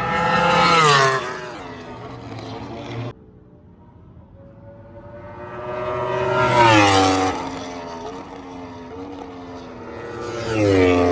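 Sport motorcycles passing at racing speed, three pass-bys. Each engine note swells and then drops in pitch as the bike goes by.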